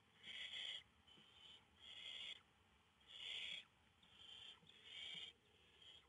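Barn owl nestlings giving hissing, snore-like calls, about seven in a row at roughly one per second, each about half a second long, from more than one chick. This is the begging call barn owl chicks make in the nest.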